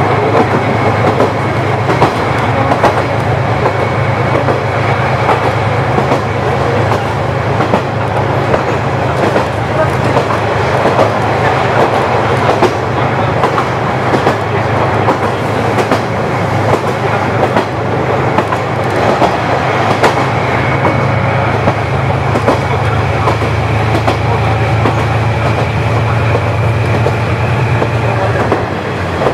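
KiHa 40 diesel railcar running along the line: a steady diesel engine drone under the clickety-clack of the wheels over rail joints. The engine drone falls away near the end.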